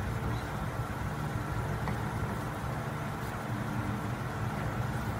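Steady low motor hum, even and unbroken, with a faint higher tone above it.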